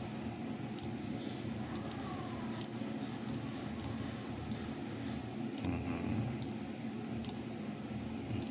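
Steady low hum of room and computer-fan noise, with faint sharp ticks about once a second.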